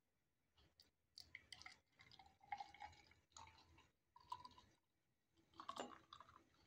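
Thick yogurt lassi poured from a glass jug into a glass tumbler: faint splashing and glugging in several short bursts.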